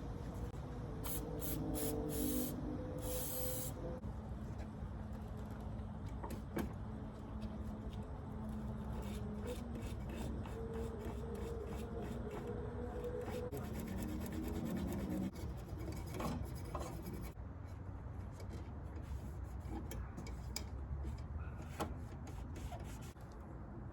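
Hand wire brush scrubbing the steel clutch hard line on a 1985 Mazda RX-7, rapid back-and-forth rasping strokes of bristles on metal.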